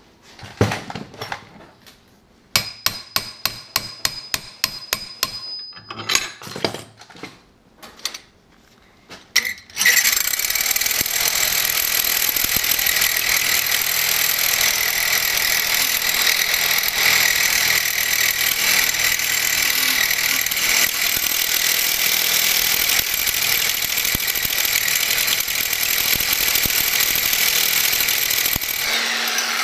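Corded reciprocating saw running for about twenty seconds with a worn blade pressed against hardened knife steel (about 58–62 Rockwell): the teeth skate and scrape, barely marring the metal, and the motor winds down near the end. Before it starts, a few knocks and a quick run of clicks.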